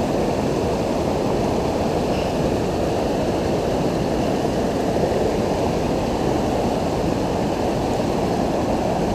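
Steady rushing of fast-flowing river water close to the microphone.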